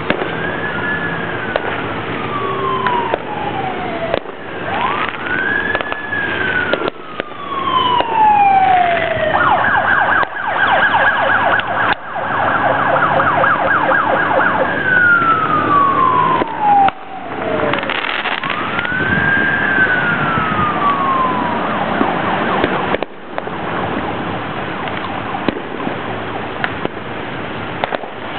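Emergency vehicle siren wailing, each cycle rising quickly and falling slowly. About ten seconds in it switches to a fast yelp for a few seconds, goes back to wailing, and stops about three quarters of the way through. A few sharp firework bangs go off in between.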